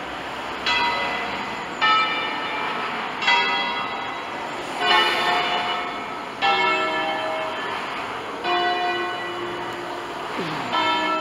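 Church bells of a five-bell Ambrosian peal, tuned to a slightly flat E and cast by Pruneri in 1887, rung by hand. About seven single strokes come one after another, roughly one every second and a half, each sounding a different bell's note and ringing on as it fades.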